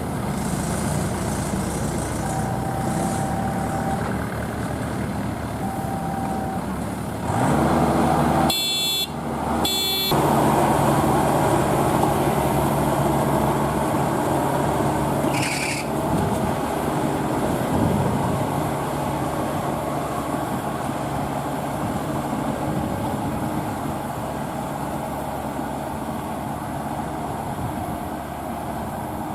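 Engine of heavy farm machinery running steadily, with two short, loud pitched sounds about nine seconds in.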